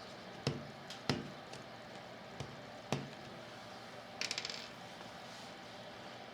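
Sharp plastic taps and knocks from handling the battery's acid container as it drains into a new motorcycle battery: four separate knocks over about two and a half seconds, then a quick rattle of small clicks about four seconds in.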